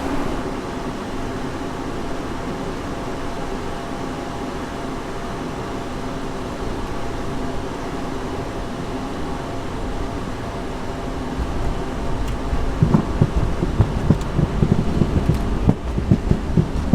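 Steady drone inside a small private jet's cabin, an even rush of engine and air noise with several steady hums. From about two-thirds of the way in, a low rumble and irregular knocks join it.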